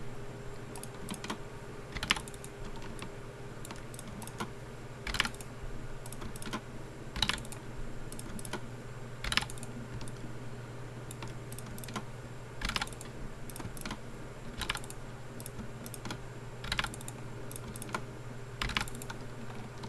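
Irregular clicks of a computer keyboard and mouse, roughly one every second or two, over a steady low hum.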